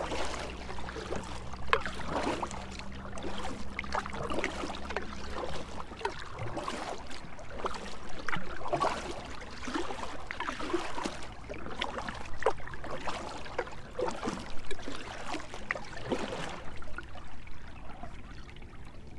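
Canoe paddle dipping and pulling through the river water, with water trickling and gurgling along the hull in irregular splashy bursts. A low steady hum runs underneath and stops about six seconds in.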